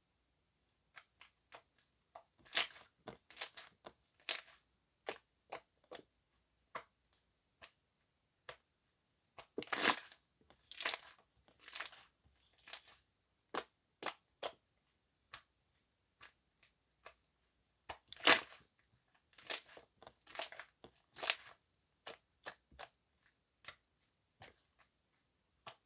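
Gel slime mixed with foam being squeezed and pressed by hand, giving irregular crackling clicks and pops as trapped air bursts, with a few louder clusters of pops.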